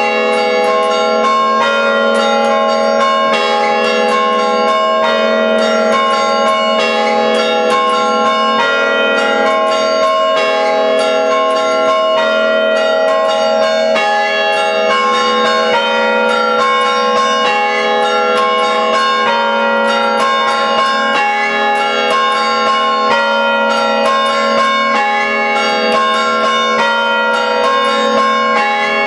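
Five church-tower bells sounded by hand through rope pulls in a traditional chime. Strikes come in quick succession, several a second, in a repeating pattern, with each bell's note ringing on under the next.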